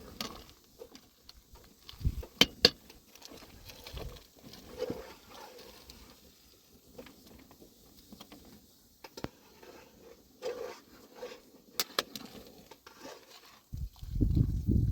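Irregular light clicks, taps and scrapes, with heavier low thumps near the end.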